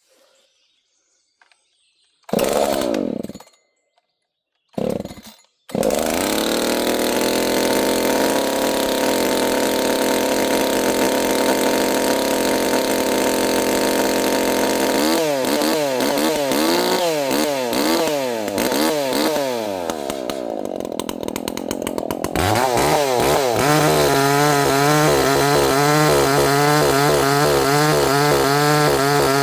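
Ported Echo CS-590 Timberwolf two-stroke chainsaw (59.8 cc) being pull-started: two short pulls about 2.5 s apart, and it catches and keeps running on the second. It runs steadily, revs up and down repeatedly, then holds a steady, louder note for the last several seconds.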